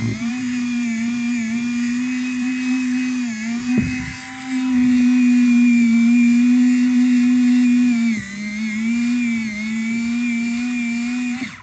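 Westcott iPoint Evolution battery-operated electric pencil sharpener whirring steadily as it grinds a pencil to a point. Its pitch dips briefly twice, it is louder for a few seconds in the middle, and it cuts off suddenly at the end.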